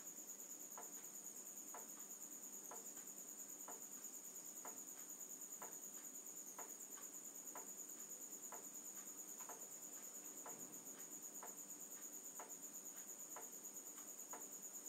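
Crickets trilling steadily in the background, a faint high continuous pulsing chirr, with a soft faint tick about once a second.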